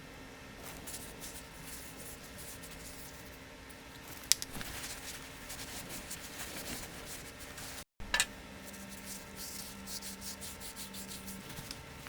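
Scratchy hand rubbing strokes on the restored screwdriver, with a sharp click about four seconds in. The sound drops out for an instant just before eight seconds, then the rubbing carries on.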